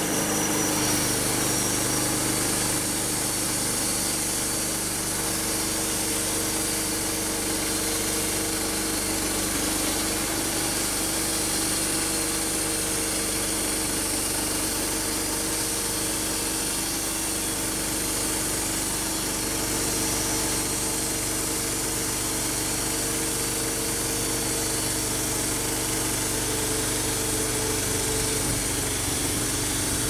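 Homemade band sawmill running steadily under load, its small petrol engine driving the band blade as it cuts along a spruce log.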